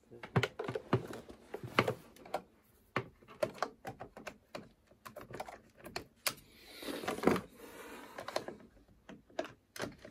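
Irregular clicks and knocks of treadmill parts being handled during assembly, with a brief scraping rustle about seven seconds in.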